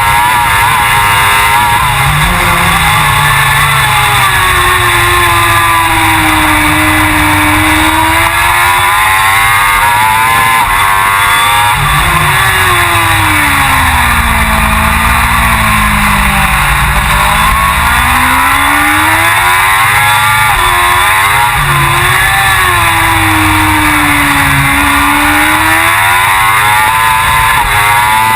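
Suzuki GSX-R1000 World Superbike's inline four-cylinder engine running hard at racing speed, its pitch repeatedly falling and climbing again as it brakes into corners and accelerates out, over steady rushing noise. The pitch sinks lowest about halfway through, then rises again.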